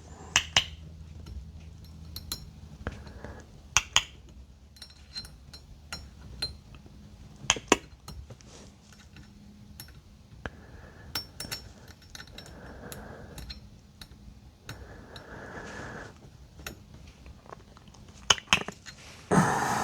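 Scattered metallic clicks and clinks of hand tools and bolts being handled, with a few short stretches of rustling about halfway through.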